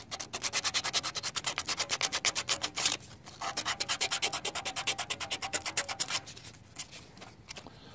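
Folded 150-grit sandpaper rubbed by hand in fast, even back-and-forth strokes over rusty, chipped spots on a scooter's painted metal frame. There are two runs of strokes with a short break about 3 seconds in, and the sanding stops about 6 seconds in.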